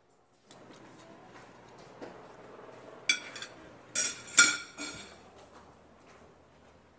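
Ceramic plates and tableware clinking against each other a few times, loudest in a cluster past the middle, over a low room murmur.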